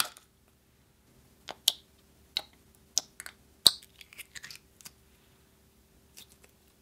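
Clear red slime in a small plastic tub being pressed and poked with the fingers, giving sharp, sticky clicks and pops at irregular intervals, with a quick cluster of smaller clicks a little past the middle.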